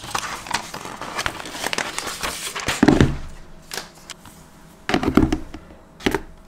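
Paper wrapping rustling and crinkling as it is peeled off a laptop, with a few dull knocks about three and five seconds in as the laptop is handled against its cardboard box.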